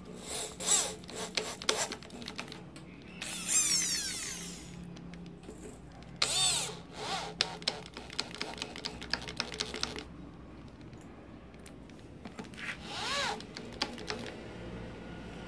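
Corded electric drill driving screws through a metal faceplate into a wooden log blank, running in several short bursts, its motor pitch rising and falling as it speeds up and slows down, with a run of short ticks between bursts.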